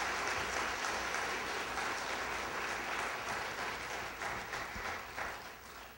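Congregation applauding in a church hall, the clapping dying away over the last couple of seconds.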